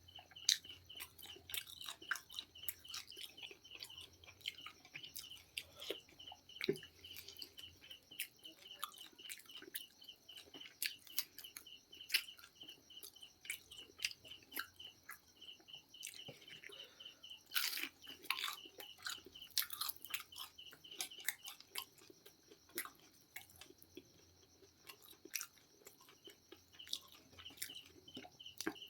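Close-miked chewing and crunching of KFC fried chicken: many irregular crisp bites and chews, a little louder around the middle.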